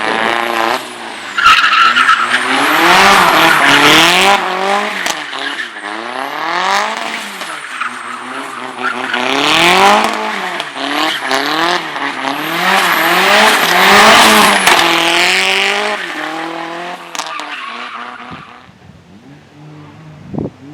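A slalom car's engine revving up and falling back again and again as it is driven hard between cones, with tyres squealing at the loudest moments. The sound fades away near the end.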